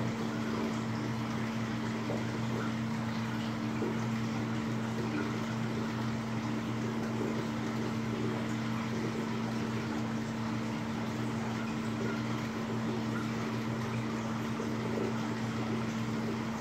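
Steady low hum of a reef aquarium's water pumps, with an even hiss of circulating water.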